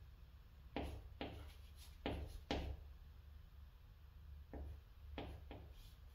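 A stick of chalk tapping and scratching on a chalkboard in short, sharp strokes as numbers and a hanja character are written. There are strokes about a second in, around two to two and a half seconds, and more between four and a half and five and a half seconds.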